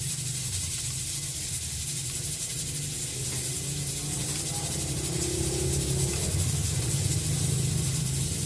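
A steady hiss over a low hum.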